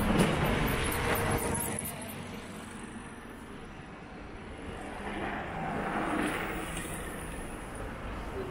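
Cars passing on a city street: one goes by close at the start and fades away, then the traffic noise swells again about five seconds in as another vehicle passes.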